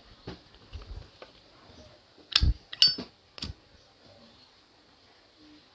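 Three sharp metallic clicks about two and a half seconds in, one with a brief high ring, from the Zippo 29789 Black Ice lighter's hinged brass lid being flipped open and snapped shut. Faint handling noise runs under them.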